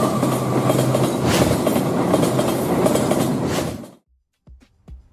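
A train running past: a loud, steady rumbling rail noise that cuts off suddenly about four seconds in, leaving only faint clicks.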